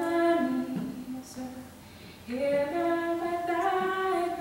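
A young woman's solo singing voice carrying a slow song into a microphone, holding long notes; she breaks off for about a second partway through, then holds another long note.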